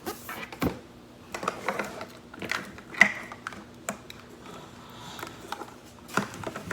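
Hands opening a small plastic Mini Brands toy package: scattered plastic clicks, taps and crinkles, uneven in spacing and strength.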